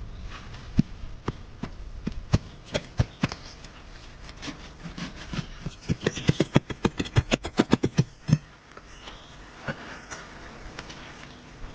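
A series of sharp wooden knocks, as wood is struck while working timber by hand. They come irregularly at first, then in a quick run of about five a second between six and eight seconds in.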